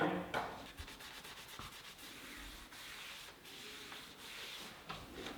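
Hand sanding of a boat's hull: sandpaper rasping over the surface in uneven rubbing strokes.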